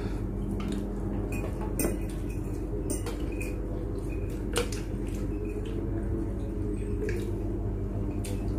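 Spoon and fork clinking against a plate now and then as someone eats, a few scattered clicks over a steady low hum.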